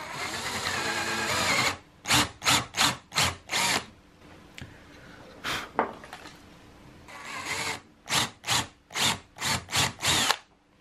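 Power drill boring holes in wood with a 17/64-inch bit. There are two holes: each begins with a steady run of about a second or more, followed by a quick series of five or six short bursts.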